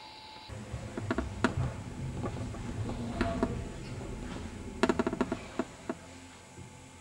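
Room sound of a painting class: scattered light knocks and clicks as paint bottles, jars and brushes are handled on the tables, with a quick run of taps about five seconds in.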